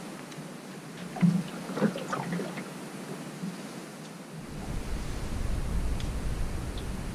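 Wind and lapping water around a small boat, with a few short knocks and clicks about a second in, then low wind buffeting on the microphone from about halfway through.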